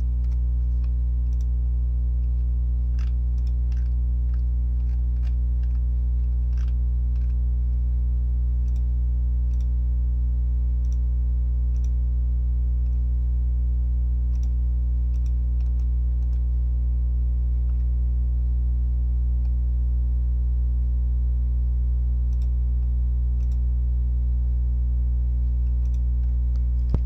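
Steady electrical mains hum on the recording, with scattered faint clicks of a computer mouse and keyboard.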